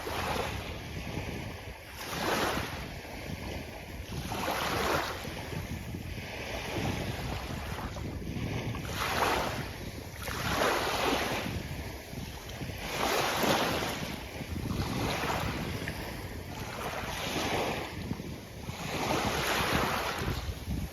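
Sea waves breaking and washing up a beach, swelling and falling away about every two to three seconds, over a steady low rumble of wind on the microphone.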